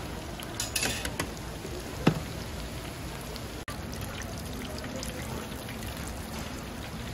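Battered food deep-frying in a pot of oil, a steady sizzle and bubbling, with metal tongs and a skimmer clinking against the fryer's wire rack; a sharp metallic knock about two seconds in is the loudest.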